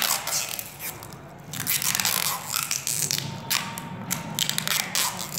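Crackling, rustling handling noise of hands working wires and a roll of white insulating tape, with tape being pulled from the roll and wound around a wire joint.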